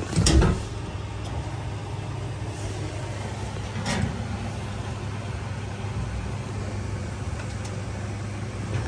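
LG Sidekick pedestal washer running with a steady low hum, with a thump just after the start and a softer knock about four seconds in. The washer is not draining properly, which the owner calls drain problems.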